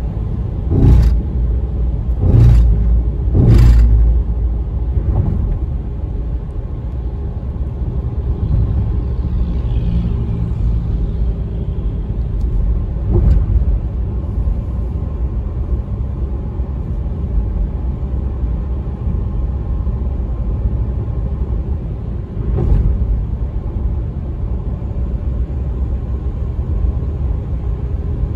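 Steady low rumble of tyre and engine noise heard inside a moving car's cabin. A few short thumps come in the first four seconds, and two more come later.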